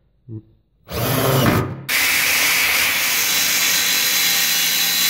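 A cordless drill runs briefly, driving a screw through a perforated steel strap. Then, about two seconds in, an angle grinder cuts steel with a steady high-pitched whine.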